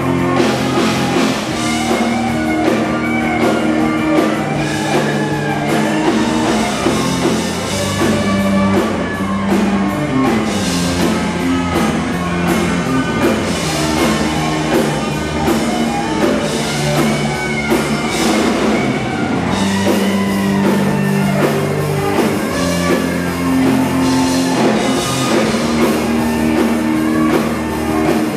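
Live rock band playing loud, with electric guitars holding long low notes over a drum kit.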